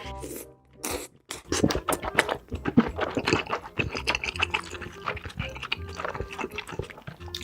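Close-miked eating sounds: rapid, irregular wet chewing and smacking of food, over soft background music.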